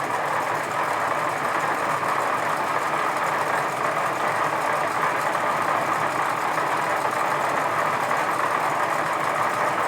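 Edgwick lathe running steadily under power feed, its gearing and leadscrew driving the tool along a light scratch pass on a 4 TPI Acme thread.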